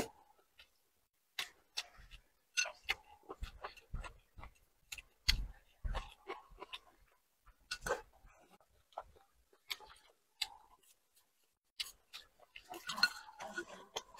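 Close-up eating sounds: chopsticks clicking irregularly against a ceramic bowl, with small chewing and mouth sounds between the clicks, growing busier near the end as food is scooped from the bowl's rim into the mouth.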